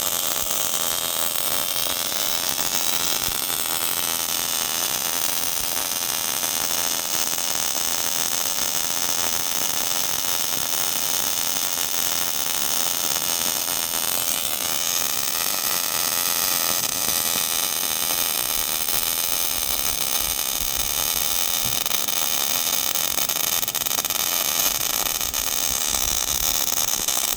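MIG robot welder laying a weld: a steady hiss from the arc, with several high steady tones over it.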